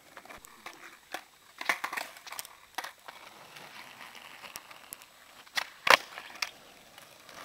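Skateboard clacking on asphalt during a varial flip: one sharp crack about six seconds in, the loudest of a scatter of smaller knocks and rustles.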